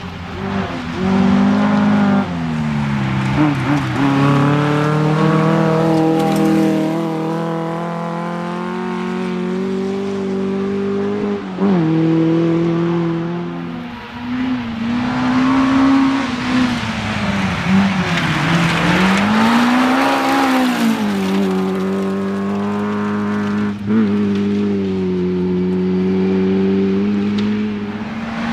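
Rally car engine running hard on a closed stage. Its pitch climbs and drops sharply several times as it changes gear, with a slow dip and rise midway as it lifts off and accelerates again.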